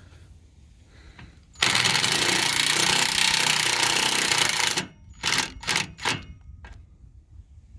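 A power driver runs a self-tapping screw in for about three seconds, starting about a second and a half in. It follows with three or four short bursts on the trigger to snug the screw down.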